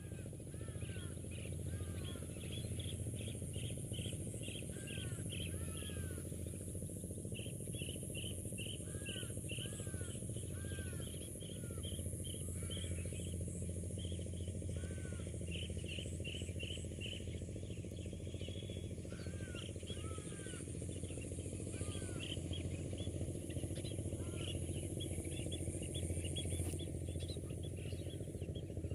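A flock of small birds chirping and calling, with quick runs of short high chirps and arching lower notes throughout, over a steady low background rumble.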